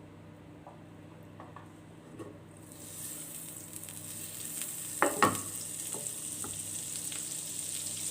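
Butter heating in a frying pan, starting to sizzle with a high hiss about three seconds in. A couple of sharp knocks sound about five seconds in.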